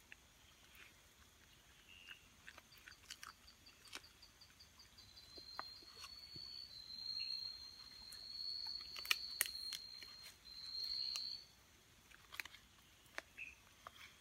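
A night insect trilling at one high, steady pitch. It starts as a rapid pulsed chirp about three seconds in, then turns into a near-continuous trill with short breaks until near the end. Scattered soft clicks of a knife slicing raw meat on a wooden cutting board sound through it.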